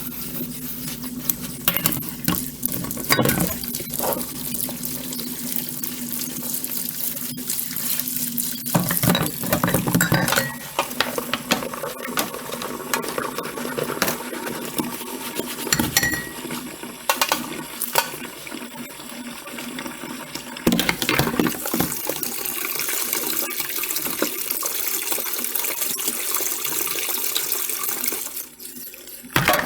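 Dishes being washed under a running kitchen tap: steady water into the sink, with frequent clinks and knocks of dishes against each other and the sink. The water eases off briefly near the end.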